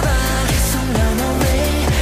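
K-pop song with an electronic dance beat playing as background music, a steady kick drum about twice a second under the melody.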